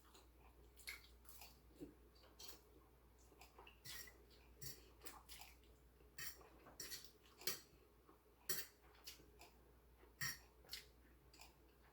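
Faint eating sounds: irregular light clicks and clinks of a utensil against a bowl, with chewing, about one to two a second.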